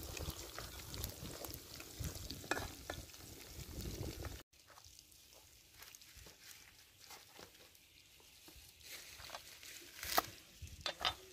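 Food sizzling in oil in a wok while a metal spatula stirs and scrapes it. After a sudden cut about halfway through it goes much quieter, with light handling sounds and a few sharp knife taps on a wooden cutting board near the end.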